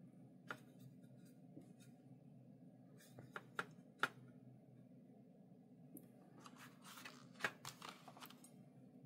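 Faint handling sounds of watercolour painting: a few light clicks and taps, then a short run of soft scratchy strokes from about six and a half to eight seconds in, over a steady low room hum.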